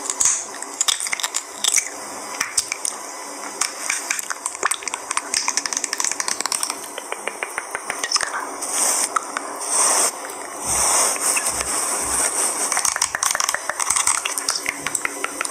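Close-miked ASMR sounds: dense, irregular crackling and clicking with a squishy, crunchy character, and a few short bursts of hiss past the middle.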